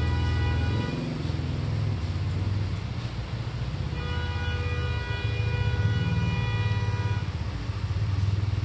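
Steady low motor-like rumble, with a sustained high tone of several pitches at once over it at the start and again from about four to seven seconds in.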